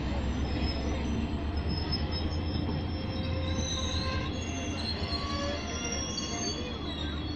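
Passenger express train coaches arriving at a station and rolling past, their steel wheels squealing in thin high tones that come and go over a steady low rumble.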